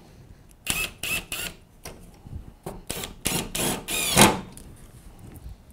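Cordless screw gun driving half-inch Phillips-head screws to fix a shelf board to a metal stand frame, in a string of short bursts. The last and longest burst, about four seconds in, carries a motor whine that rises and falls.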